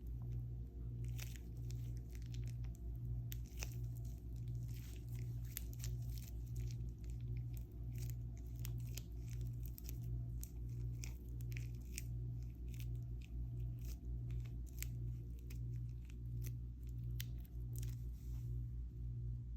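Crunchy slime being worked by hand, crackling and popping in many sharp, irregular clicks, over a steady low pulsing of about one and a half beats a second.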